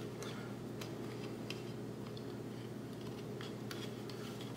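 Faint scattered clicks and taps of a plastic anti-splinter insert being worked into the metal shoe of a jigsaw by hand, over a steady low hum.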